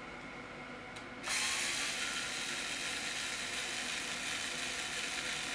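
Cordless electric screwdriver with a T-10 security Torx bit starting up about a second in and running steadily, its motor and gearbox whirring as it backs a screw out of a battery pack's plastic case.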